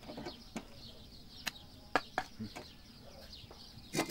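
Sparse, sharp taps and knocks of a mason's trowel against clay brick and mud mortar, with a short cluster of knocks near the end as a brick is set in place. Faint bird calls in the background.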